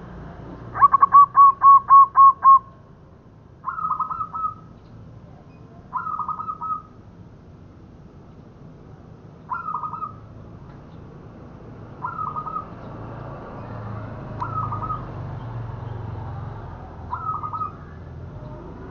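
Zebra dove (perkutut) cooing: about a second in, a quick run of about seven loud, evenly spaced notes, followed by short, quieter coo phrases roughly every two and a half seconds.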